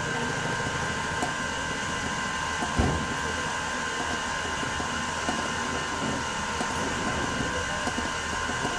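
Steady mechanical hum carrying a few fixed high-pitched tones, with a single thump about three seconds in.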